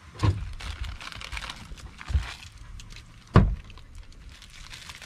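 Handling noise of instant ramen being prepared: light crinkling and rustling of the noodle packet and crumbled dry noodles, broken by three dull thumps, the loudest about three and a half seconds in.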